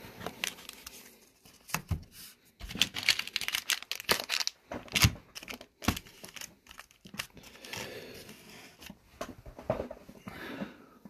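Wrapped hockey card packs crinkling and crackling as they are handled and stacked, with irregular sharp clicks and taps.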